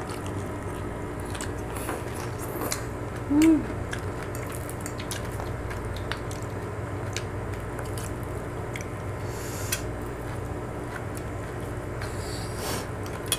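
Mealtime eating sounds: scattered faint clicks of cutlery on plates and chewing over a steady low hum. About three and a half seconds in, a short hummed "mm" from one of the diners, rising and falling in pitch, is the loudest sound.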